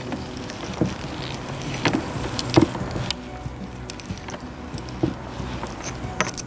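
Black peppercorns cracking and crunching as they are ground in a restored manual cast-iron spice mill, with irregular sharp cracks, the loudest about two and a half seconds in.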